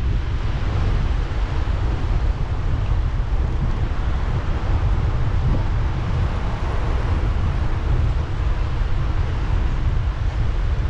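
Wind buffeting a GoPro action camera's microphone on a moving bicycle: a steady low rumble with an even rushing hiss over it.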